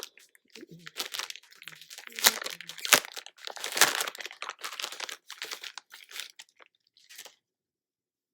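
Plastic packaging around hair bundles crinkling and rustling as it is handled and pulled open, with a few sharper crackles; it stops abruptly about seven seconds in.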